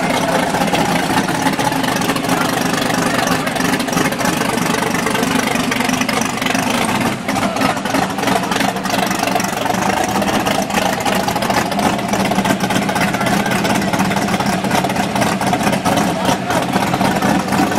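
Fox-body Ford Mustang drag car's engine idling loudly and steadily in the staging lanes.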